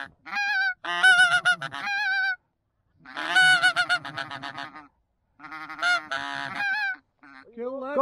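Geese honking, several calls overlapping in bursts of a second or two with short pauses between.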